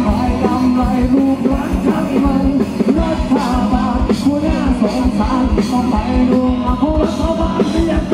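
Live rock band playing loudly through stage speakers: electric guitars, bass and drums with a fast, steady kick-drum beat, and a singer's voice on top.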